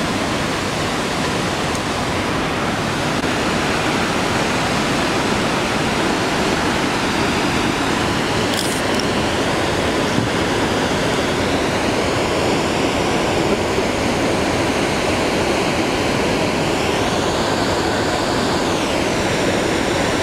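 Sahalie Falls on the McKenzie River: a steady rush of falling water, with no break. Its tone wavers slightly in the second half.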